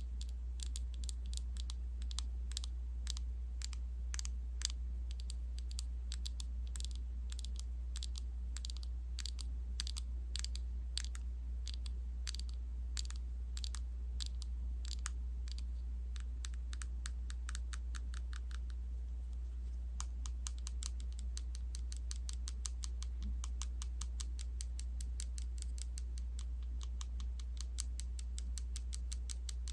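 Quick light tapping, about three or four taps a second, that stops briefly about two-thirds of the way through and then picks up again, over a steady low hum.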